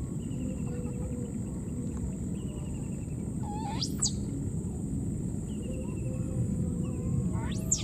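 High-pitched animal calls that sweep steeply up and then down, two of them about four seconds apart, over a steady low rumble and a thin steady high whine, with short falling chirps in between.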